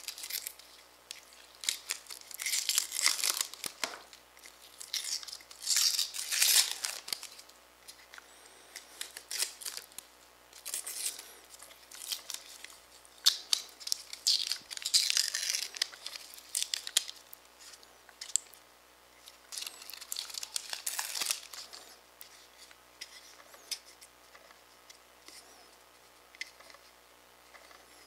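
Protective paper masking being peeled off a laser-cut acrylic gear: repeated ripping as strips tear away, with paper crinkling. The ripping comes in about half a dozen pulls, fainter over the last several seconds.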